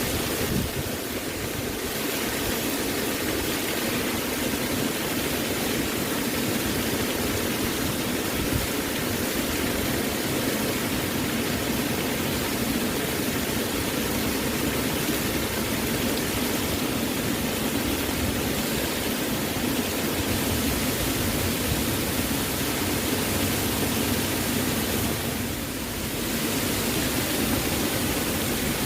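Waterfall rushing steadily, an even wash of falling-water noise with the most weight in its lower middle range. It briefly dips a little about a second in and again near the end.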